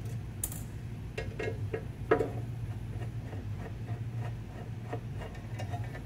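Light scattered clicks and ticks of a Phillips screwdriver backing a screw out of the printer's encoder wheel bracket, with one louder click about two seconds in, over a steady low hum.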